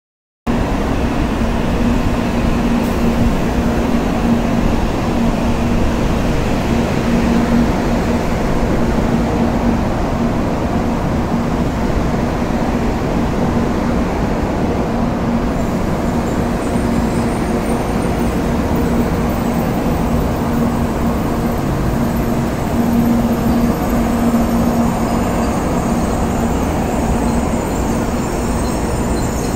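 Shinkansen train noise: a loud, steady rumble with a low hum. From about halfway, high-pitched squealing tones come in and build toward the end, typical of wheel or brake squeal as a train moves slowly through the station.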